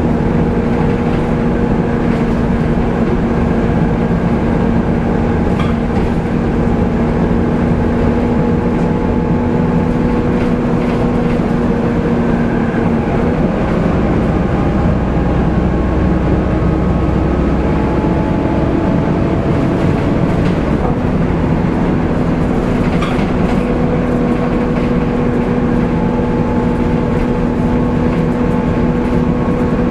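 Volvo B7TL double-decker bus heard from inside while under way: the diesel engine, drivetrain and loud cooling fan make a steady low rumble with a constant hum. About 13 seconds in the hum drops away and several tones rise and fall as the engine changes speed, and the steady hum comes back at about 21 seconds.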